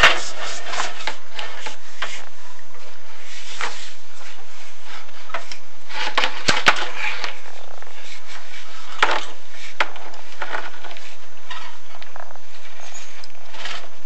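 A chimney inspection camera scraping and rubbing against the flue tile walls as it is lowered down the flue. Sharp knocks break in at the start, in a cluster about six to seven seconds in, and twice more around nine and ten seconds.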